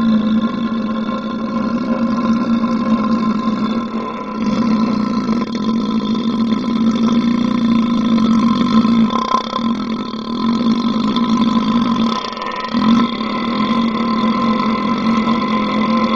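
A human belch played in slow motion: one long, low, droning burp with a steady pitch, dipping briefly a few times.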